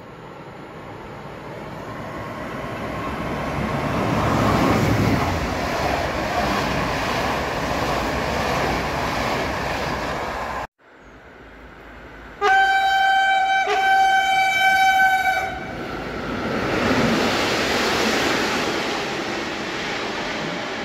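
Passing train rumbling on the rails, growing louder as it nears and passes beneath, then cutting off abruptly. A train horn then sounds one steady note for about three seconds, briefly broken in the middle, followed by the rising rumble of another approaching train.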